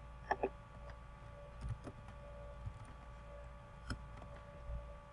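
Computer keyboard keystrokes: a few scattered, faint clicks as a short line of code is typed, over a low steady hum with a faint constant tone.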